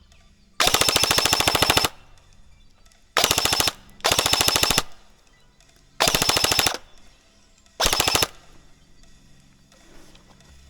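Airsoft gun firing on full auto in five short bursts of rapid clicking shots, the first and longest a little over a second.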